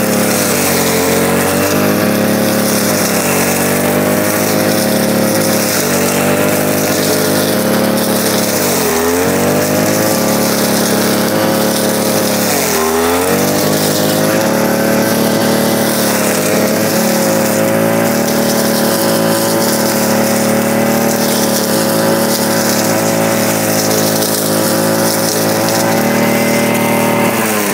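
Maruyama MBS3600RS 36 cc two-stroke backpack brush cutter running at high revs while its blade cuts through tough, dense grass. The engine pitch sags sharply twice under load, about 9 and 13 seconds in, and recovers each time. Near the end the revs drop as the throttle is let off.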